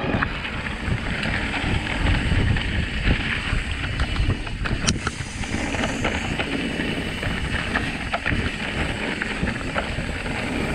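Mountain bike riding down a trail: wind rushing over the microphone, with tyre noise and frequent rattling clicks and knocks from the bike over rough ground.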